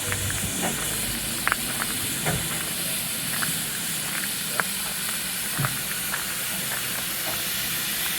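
Steam locomotive standing, with a steady hiss of escaping steam and scattered light clicks.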